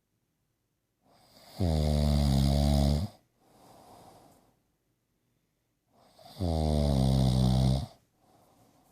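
A sleeper snoring: two loud, rasping snores about four and a half seconds apart, each lasting about a second and a half, with quiet breathing between them.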